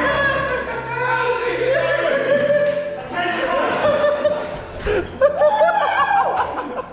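Background music: a sung or voiced melody over a steady bass line.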